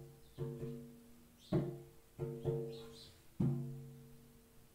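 Low, ringing notes struck one at a time on a tuned percussion instrument, about six strokes in an uneven rhythm, some in quick pairs. Each note sustains and fades before the next.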